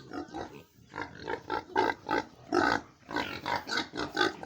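Domestic pigs, piglets among them, grunting in a rapid run of short calls, about four a second.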